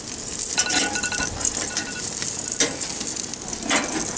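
Chicken wings sizzling on a hot grill rack, with metal tongs clicking against the grate now and then as a stuck wing is worked loose. Short repeated high tones sound faintly in the background.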